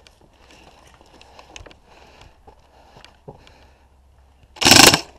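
Airsoft electric rifle firing a short full-auto burst of about half a second near the end, after a few seconds of faint rustling and small clicks.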